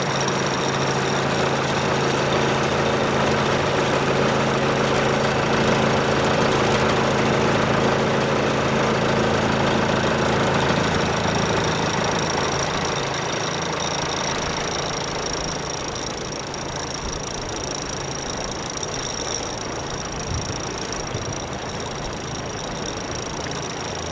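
Boat engine running steadily under way, with a broad rushing hiss of water and wind over it. About halfway through, the engine's low steady note weakens and the whole sound gets a little quieter.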